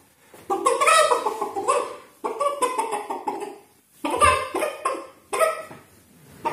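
A person's voice in four short phrases with brief gaps, high-pitched and animal-like rather than plain speech.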